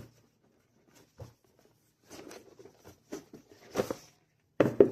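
Cardboard board-game box and components being handled: scattered rustles and light knocks, the loudest near the end.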